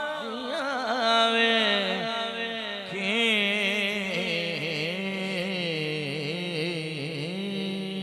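Male voice singing a Punjabi naat unaccompanied, in long melismatic phrases with wavering, ornamented notes, settling into a long held low note near the end.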